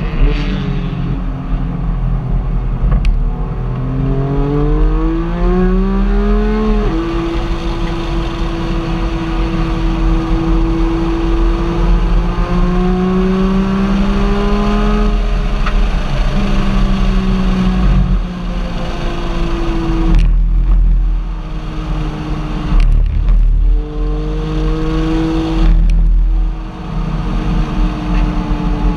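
Car engine running while driving, its pitch rising under acceleration and dropping suddenly at a gear change about seven seconds in, then holding steady and climbing slowly again before falling back.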